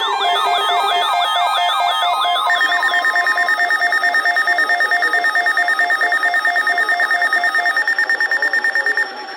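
Several weather radios sounding their alert tones together. Sweeping siren-like wails fill the first two to three seconds, then give way to rapid, steady beeping over a slower pulsed lower tone. The alerts cut off suddenly about nine seconds in.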